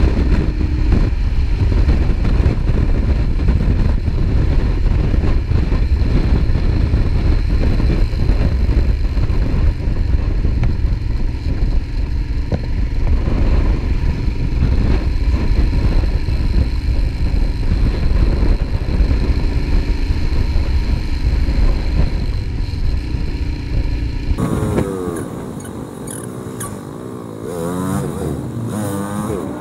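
Royal Enfield Himalayan single-cylinder motorcycle at road speed, played back fast: engine running under heavy wind rumble on the microphone. About 24 seconds in the wind noise drops away and the engine comes through clearly, revving up and down in quick rising and falling sweeps of pitch.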